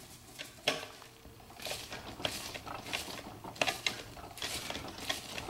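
Socket wrench on an extension bar tightening the mounting bolts of a new dishwasher motor: irregular metallic clicks and clinks with short bursts of ratcheting.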